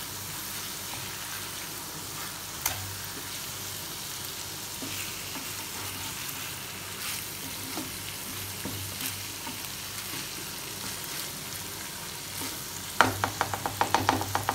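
Hilsa fish in mustard paste sizzling steadily in a nonstick frying pan, with an occasional click of a spatula against the pan. Near the end comes a quick run of spatula scrapes and taps as the fish and paste are moved about.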